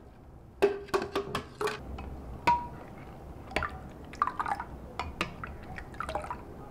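Wet kitchen sounds of beetroot juice being strained and stirred: a run of sharp clicks and drips about half a second in, then scattered clinks of a ceramic spoon against a bowl, one with a short ring, as the juice is stirred and scooped.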